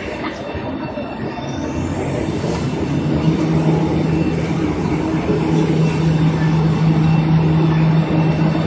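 Toilet-tissue and kitchen-towel production line machinery running, a dense steady mechanical noise. About a second in, a whine rises in pitch; from about three seconds in, a strong steady hum joins and the noise grows louder.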